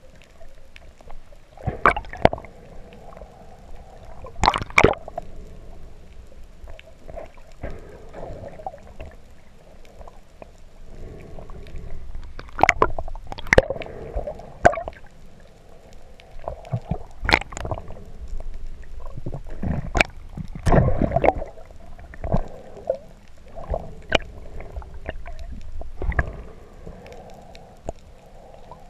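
Muffled underwater sound heard through a waterproof camera as a diver swims with fins: a steady dull wash of moving water, broken by irregular sharp clicks and knocks.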